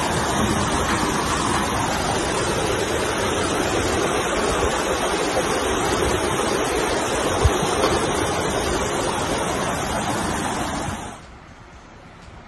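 Heavy rain and rushing floodwater making a steady, loud rushing noise, with one brief thump about halfway through. About eleven seconds in, the noise drops sharply to a much quieter hiss.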